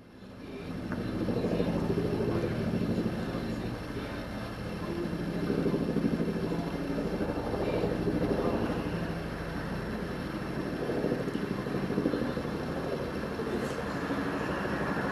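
News helicopter flying overhead, heard from the ground: steady rotor and engine noise that rises in over the first second or so, then swells and eases a little as the helicopter circles.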